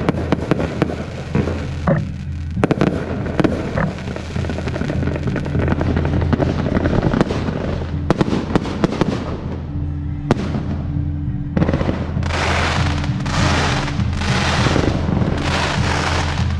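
Fireworks show: a dense run of sharp cracks and bangs from shells and firecrackers for the first ten seconds or so, then from about twelve seconds in a series of hissing bursts repeating roughly once a second.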